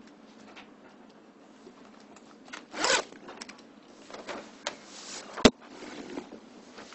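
A zip pulled briefly about three seconds in, among light rustling and handling noises, then a single sharp knock a couple of seconds later.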